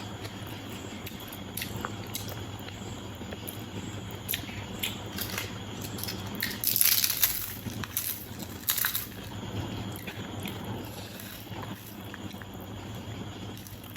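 A person eating biriyani: chewing and small mouth clicks, with a louder crackling burst about seven seconds in and a shorter one near nine.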